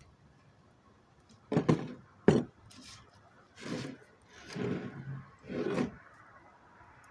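Wooden pieces being handled: two sharp wood knocks about one and a half and two and a half seconds in, then three longer scraping rubs of wood sliding against wood.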